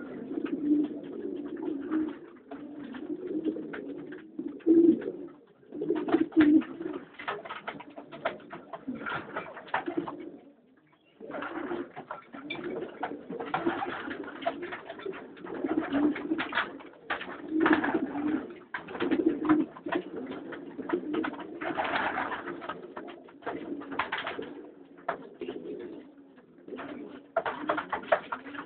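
Several pigeon cocks cooing in a loft, their calls overlapping almost without a break, with a short pause about eleven seconds in. This is courtship cooing as the cocks are paired with hens.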